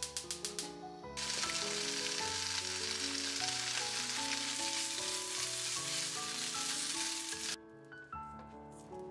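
Bacon and snow peas sizzling in a frying pan, starting about a second in and cutting off abruptly near the end. Before the sizzle, a quick run of light taps, about eight a second.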